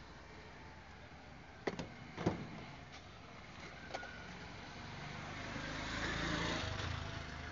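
Road traffic, with a vehicle passing that swells up from about five seconds in. Two sharp knocks come around two seconds in.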